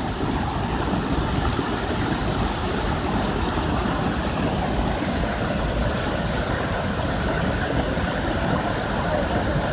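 Water rushing over rock at the lip of a small waterfall, a steady loud rush with a deep rumble beneath it.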